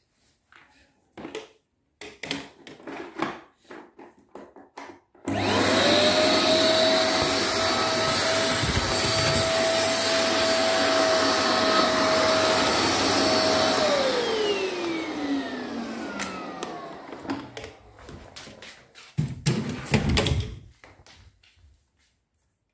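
Electric vacuum cleaner switched on about five seconds in, its motor whining up quickly to a steady pitch over a loud rush of air. After about eight seconds it is switched off and winds down with a falling whine. Scattered knocks and handling sounds come before it starts and after it stops.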